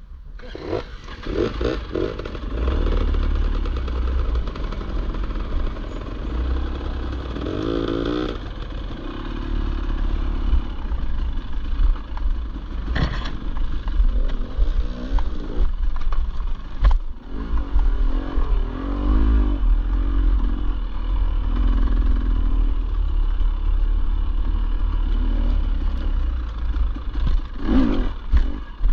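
Enduro dirt bike engine riding a rough singletrack, revving up and down with the throttle under a heavy low rumble. A few sharp knocks from the trail come through in the middle.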